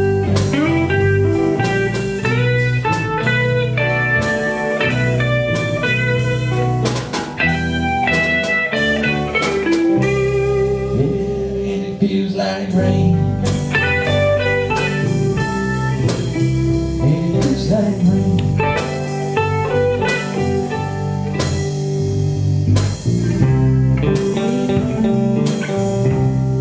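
Blues band playing, with guitar lines over a bass line and drums.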